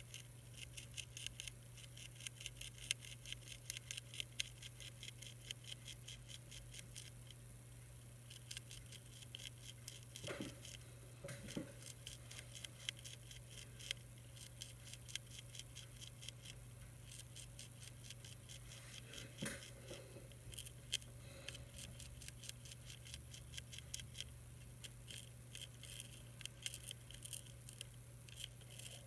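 Monarch caterpillar chewing a milkweed leaf: a fast run of faint, crisp clicks, several a second, over a steady low hum.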